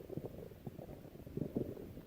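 Stomach growling: a quiet, irregular run of low gurgles and crackles.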